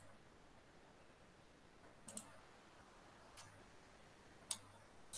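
Computer mouse clicking a few times: a single click, a quick double click about two seconds in, and another click near the end, over faint hiss.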